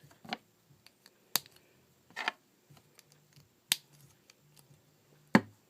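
Plastic Lego pieces clicking as they are pressed together: about five separate sharp clicks, roughly a second apart, the loudest near the end.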